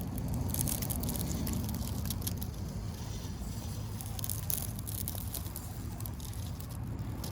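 Small-scale RC rock crawler's tyres crunching and crackling over rock and dirt as it climbs, a dense run of small clicks over a low steady rumble, thinning out after about five seconds.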